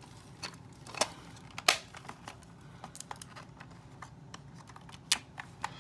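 LOL Surprise toy packaging and its insert being handled and opened: scattered clicks, taps and crinkles, the sharpest about a second in and another near the end.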